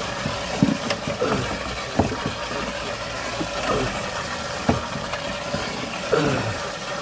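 Water trickling and gurgling in a drain pipe, with irregular knocks and clunks over a steady low hum.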